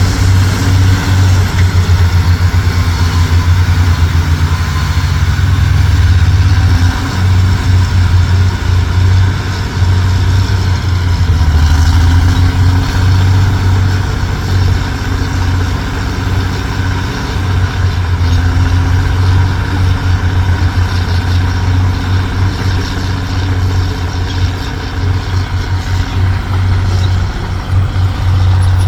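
Heavy dump truck's engine running steadily with a deep, even throb.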